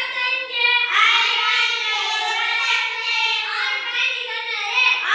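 A child's high voice reciting the 15 times table aloud in a continuous sing-song chant.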